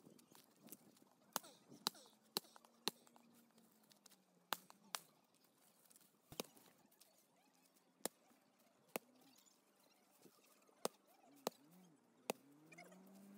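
Dry deadwood branches being chopped and broken up on the ground: about a dozen sharp, woody knocks and cracks at irregular intervals.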